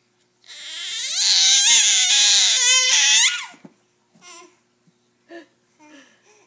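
Baby vocalizing: one long, high-pitched squeal of about three seconds with a wavering pitch, followed by a few short, soft sounds.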